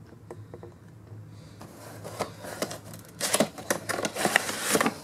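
Cardboard box of a diecast model airliner being handled and opened by hand: the card rustles and scrapes, with quick clicks and taps. It starts about a second and a half in and grows louder toward the end.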